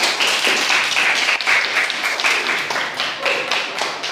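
A group of children applauding: many hands clapping fast and thick, easing off slightly near the end.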